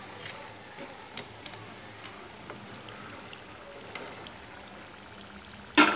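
Samosas deep-frying in hot oil in an iron kadai over a high flame: a steady low sizzle with small scattered pops as the finished samosas are lifted out with a slotted spoon. A brief louder noise comes near the end.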